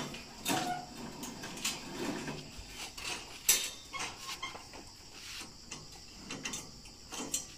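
Clanks and rattles from a stainless-steel tube pig-weighing cage as its bars and gates are handled, with the sharpest knock about halfway through. Pigs grunt now and then inside the cage.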